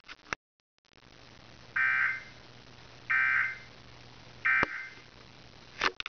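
Three short bursts of Emergency Alert System digital data tones, a harsh buzzing chirp each, about a second and a half apart, played through a TV speaker. Short bursts with the regular programme coming back right after fit the end-of-message signal that closes the alert.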